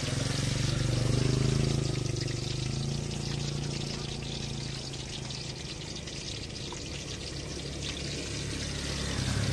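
Battered bananas and sweet potato deep-frying in a wok of hot oil: a steady sizzle full of fine crackles, with a low rumble underneath that is strongest about a second in.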